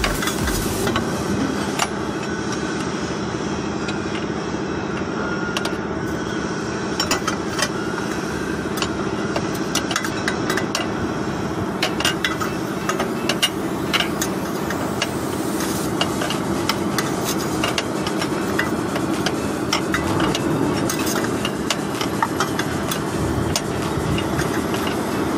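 Hand tools clicking and tapping on metal parts, many short sharp knocks scattered throughout, over a steady engine-like hum.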